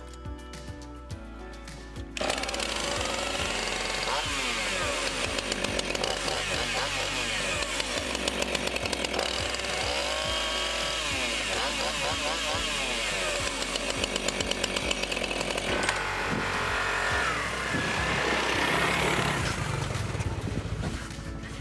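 Husqvarna 445 two-stroke chainsaw running and revving, its engine pitch rising and falling, being test-run after a tune-up with a new spark plug, air filter and fuel filter; it starts about two seconds in. Background music plays underneath.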